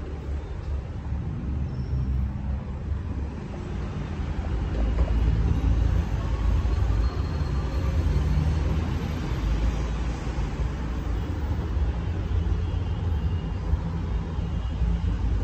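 Steady low rumble of city traffic below a high-rise balcony.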